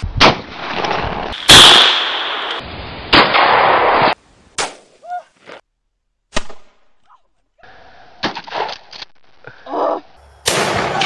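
Shotgun blasts, about half a dozen sharp bangs a second or two apart, each followed by a short noisy ring-out; the loudest comes about a second and a half in.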